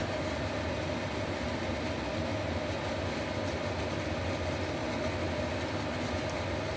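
Pot of fish tofu soup at a hard boil over a gas burner on high flame: a steady rushing, bubbling noise with a low hum.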